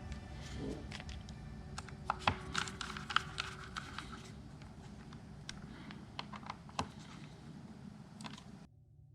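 Scattered light metallic clicks and ticks of a small screwdriver turning small screws and of metal parts being handled, densest a couple of seconds in and thinning out, over a low hum. The sound cuts off abruptly near the end.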